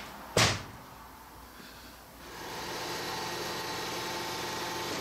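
A single sharp metallic knock, then a steady machine hum that starts about two seconds in and keeps running.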